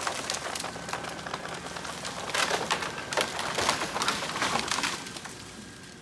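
Red elm coming down: a dense crackle of snapping wood and branches breaking, which dies away about five seconds in.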